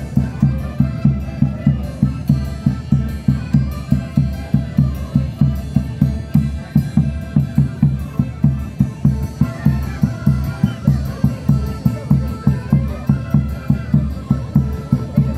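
Band music for a Saqra dance: a bass drum beating steadily at about three beats a second under a melody line.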